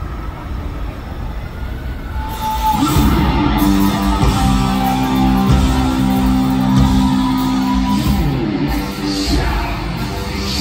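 Crowd noise at first, then about two and a half seconds in a live rock band comes in loud, with electric guitars holding long chords over drums.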